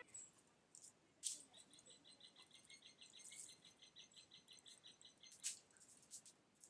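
Near silence, with a faint, rapid, high chirping trill of about seven pulses a second lasting a few seconds, and a couple of faint clicks.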